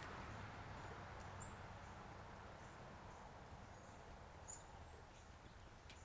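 Quiet outdoor ambience with a few faint taps of a downy woodpecker pecking at a suet cake in a wire cage feeder, and two brief high bird chirps, about a second and a half in and near the end.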